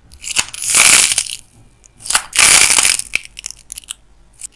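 White clay figure crushed and bent in the hands, its hardened outer skin cracking and crumbling in two long crunching bursts, with scattered single cracks between them and another burst starting near the end.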